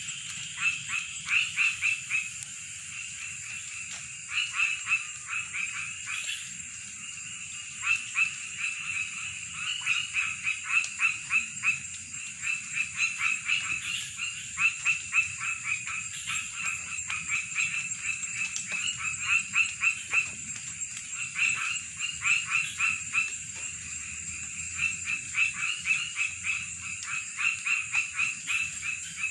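Frogs calling in a swamp at night: runs of short, rapid croaking notes repeated in bursts, several frogs overlapping, over a steady high-pitched insect drone.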